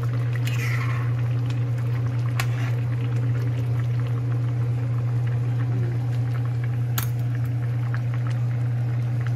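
Steady low hum throughout, with a ladle clinking and scraping against a stainless steel pan of simmering coconut-milk stew. The ladle gives a few sharp clicks, the loudest about seven seconds in.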